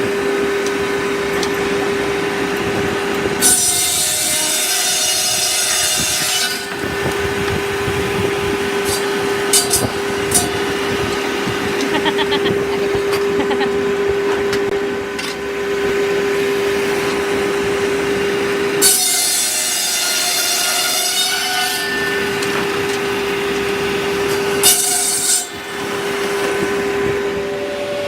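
Circular sawmill running with a steady hum, its blade cutting through wood: a long cut about three seconds in, another about two-thirds of the way through, and a short one soon after, with a few knocks between.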